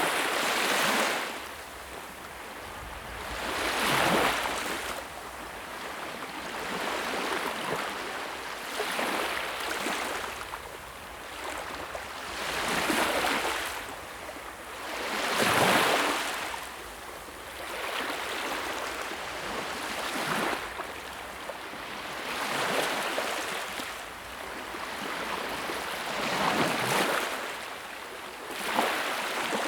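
Sea waves breaking and washing in, a hissing surge of water that swells and falls back every two to five seconds.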